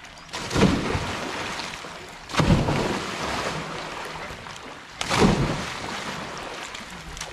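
Water splashing and churning in a swimming pool, in three surges a couple of seconds apart, each fading away.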